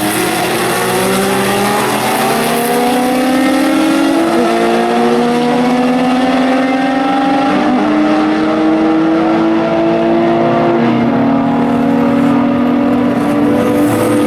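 Several historic racing cars' engines accelerating hard, their notes climbing steadily in pitch with brief dips at gear changes about a third, halfway and three quarters of the way through.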